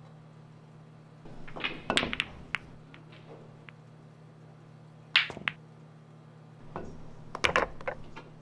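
Billiard balls clacking on a pool table: a cue tip striking the cue ball and balls knocking together, in three quick clusters of sharp clicks, over a low steady hum.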